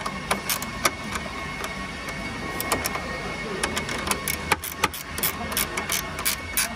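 Spanner clicking on the nut that holds a car's rear light unit. The sharp clicks are irregular at first and come faster, about three a second, in the second half.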